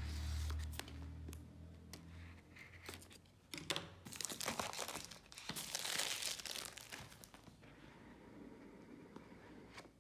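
Plastic shrink wrap on a cardboard phone box being slit and peeled off: a few light clicks and scrapes first, then crinkling and tearing of the film, loudest in the middle few seconds.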